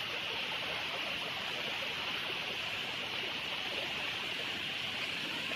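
Steady rushing of a waterfall's water, an even hiss with no breaks.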